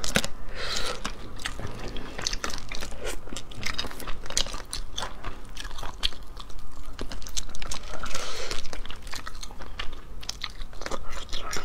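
Close-up eating sounds of boiled shellfish: shells cracking and crunching as they are pulled apart and bitten, with wet chewing and sucking. Many sharp cracks come in irregular clusters.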